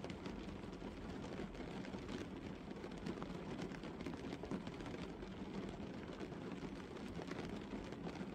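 Gentle rain pattering on a car's windscreen and body, heard from inside the car: a steady, dense patter of small drop ticks.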